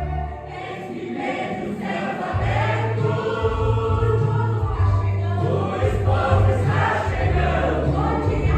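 Gospel choir singing in unison, with low sustained bass notes underneath that change every second or so.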